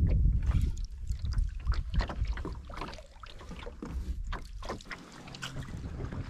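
Canoe paddle strokes in the water: splashes and drips from the blade, with low wind rumble on the microphone that is strongest in the first second or so.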